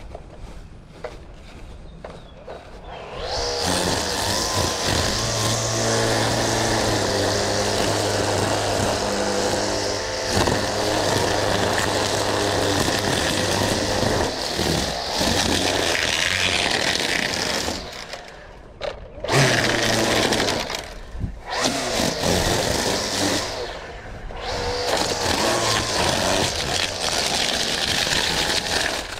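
Small gas engine of lawn-care power equipment running at high revs, starting a few seconds in and dropping off briefly a few times.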